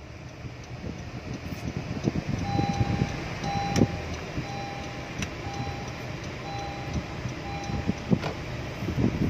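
A car's seat belt reminder chime beeping about once a second, six beeps in all, over the low rumble of the engine and tyres inside the moving car's cabin: the driver's seat belt is unfastened.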